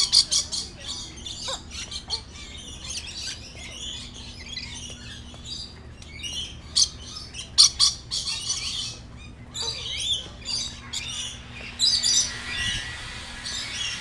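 A flock of lorikeets screeching and chattering, with rapid runs of shrill squawks, loudest at the start and again about seven to eight seconds in.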